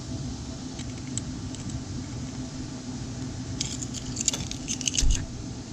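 Small metal parts of a chainsaw carburetor clicking and clinking as they are handled and taken apart, in a quick cluster a little past halfway, over a steady low hum.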